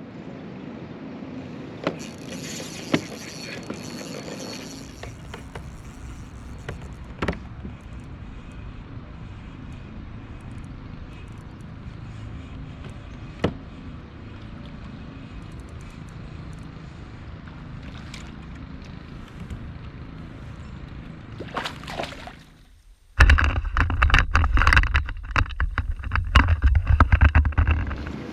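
A kayak on the water, with low steady water noise and a few sharp knocks against the boat. About 23 seconds in, after a brief dropout, a sudden loud, rough stretch of rumble and crackle takes over.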